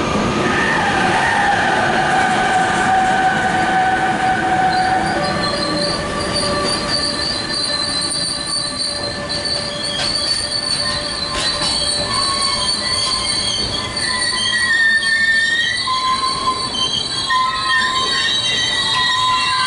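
Train passing with its steel wheels squealing against the rails: several high, drawn-out squealing tones that waver and overlap over the running noise, a lower one dying away about five seconds in as higher ones take over.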